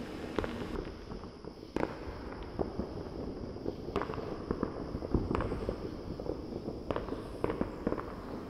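Scattered sharp pops and cracks at irregular intervals over a low steady rumble.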